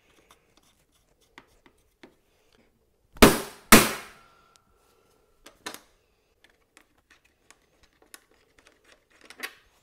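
Two hammer blows about half a second apart on a bolt threaded into an embedded nut, knocking the nut out of the motorcycle's rear subframe plate; the second blow leaves a short metallic ring. A lighter knock follows a couple of seconds later, among small handling clicks.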